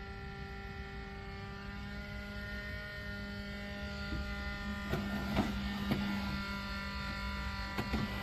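Steady electrical hum made of several steady tones, with a few light clicks and rustles about five to six seconds in and again near the end.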